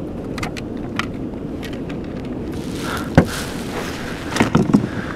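Steady wind rumble on the microphone of a kayak at sea, with a few light clicks, one sharp knock about three seconds in and a quick cluster of knocks near the end.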